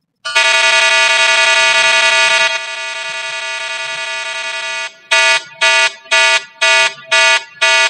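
Drowsiness-alert alarm sound played by the detection program, set off because the eyes are detected as closed. It starts as a continuous buzzing tone that drops in level partway through, then breaks into short beeps about two a second.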